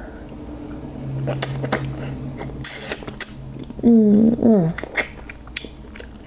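Close-miked eating of seafood-boil crab meat: wet sucking, lip smacks and chewing clicks, with a brief slurping hiss about two and a half seconds in. A short voiced 'mmm' with a bending pitch, about four seconds in, is the loudest sound.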